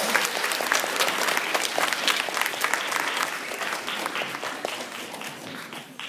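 Audience applauding, the clapping dying away toward the end.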